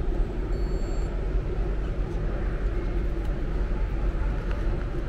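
Steady low rumble and hum of a metro station ticket hall, with a faint brief electronic beep about half a second in.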